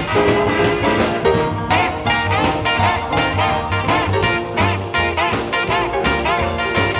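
Swing-style jazz music with brass and a walking bass, played back from cassette tape on a Technics RS-M205 cassette deck and recorded straight from the deck's output.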